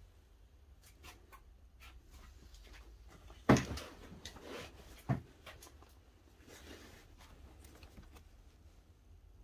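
Faint clicks and rustling of hands and a phone working around the scooter's body, with two sharp knocks, one about three and a half seconds in (the loudest) and another about a second and a half later.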